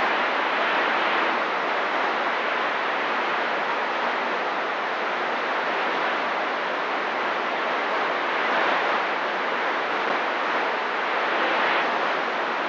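CB radio receiver giving off steady static hiss on an open channel, with no one transmitting.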